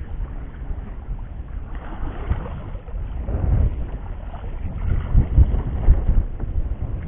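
Wind on the microphone and water washing around a small boat at sea: a low, rumbling noise that swells and eases in uneven surges, with no engine tone.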